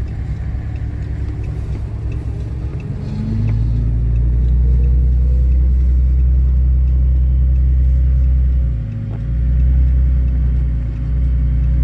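Steady low rumble of driving heard from inside a pickup's cab on a gravel road. It swells about three seconds in and dips briefly near nine seconds.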